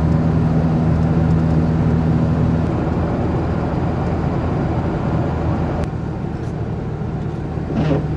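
Road and engine noise inside a pickup truck's cab while driving, a steady drone. The engine's low hum drops away about two and a half seconds in and comes back near the end.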